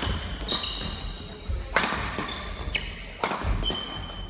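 Badminton doubles rally on a wooden court floor: three sharp racket strikes on the shuttlecock, roughly a second and a half apart, with short squeaks of shoes and thuds of feet between them.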